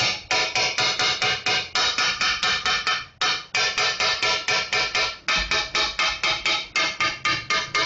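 Background instrumental music: a fast, even run of short repeated notes, about five a second, with brief breaks now and then.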